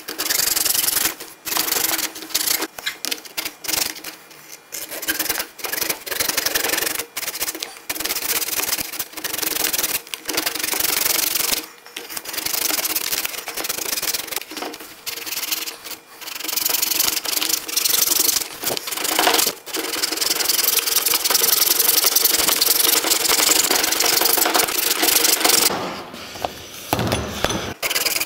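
Hacksaw cutting through the hard plastic case of a Chevy Colorado's EVAP charcoal canister, in repeated back-and-forth strokes. There are short pauses between runs of strokes at first, then steadier sawing through the second half, and a brief stop near the end.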